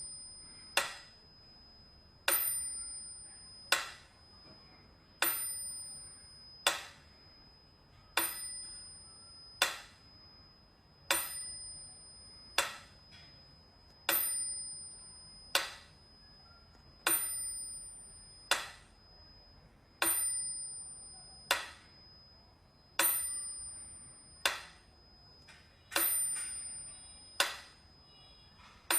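A small bell struck over and over in a steady rhythm, about every second and a half, alternating a longer ringing strike that fades with a short sharp one.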